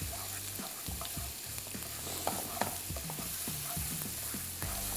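Chopped garlic and ginger sizzling in hot oil in a nonstick frying pan, with a spatula stirring and scraping the pan in quick, irregular strokes.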